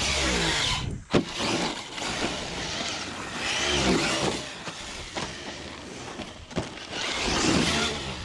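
1/8-scale RC rally car's brushless electric motor, a BLX 2050KV on 6S, whining up and down in pitch three times as the throttle is worked, over the hiss of its tyres spraying dirt. There is a sharp knock about a second in.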